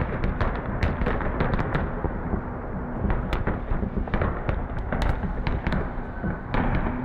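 Shelling landing across a town: an uneven, rapid string of explosions, several sharp cracks a second over a continuous low rumble.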